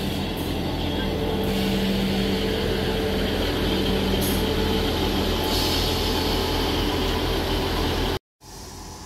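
Class 158 diesel multiple unit's underfloor diesel engines running as the train moves past along the platform, a steady engine drone that cuts off suddenly near the end.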